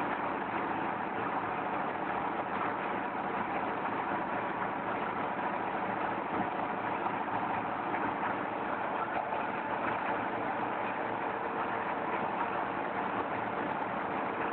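Red-clay brick extruding machine running steadily: a continuous mechanical noise with a few held steady tones and no change in speed.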